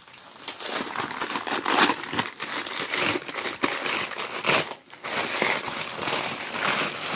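Packing paper crinkling and tearing as it is ripped off a wrapped item, a continuous crackling with a brief pause just before the five-second mark.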